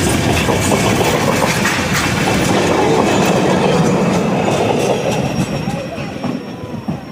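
Train cars rolling past, their wheels clicking over the rail joints, with a little wheel squeal. The sound fades away over the last couple of seconds.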